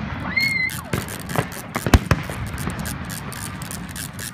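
Aerial fireworks bursting overhead: a run of sharp bangs and crackles at irregular intervals, the loudest about two seconds in.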